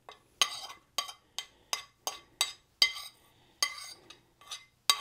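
A utensil clinking against a dish again and again as spicy onions are spooned over roasted squash: a dozen or so short ringing taps, about two or three a second, with a brief pause past the middle.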